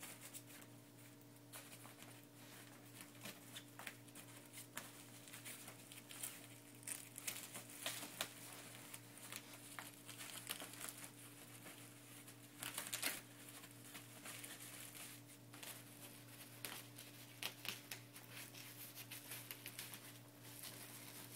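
Velcro strips and cloth rustling and crackling, with short scratchy rips, as a softbox's front diffusion baffle is pressed on and adjusted along its Velcro edges; a longer rip comes about two-thirds of the way through.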